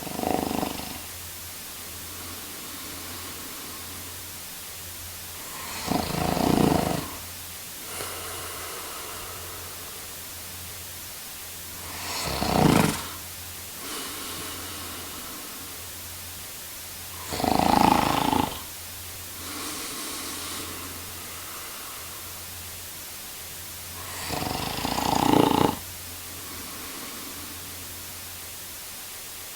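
A man snoring in his sleep: five loud snores, each about a second long, come roughly every six seconds, with fainter breaths between them over a steady hiss.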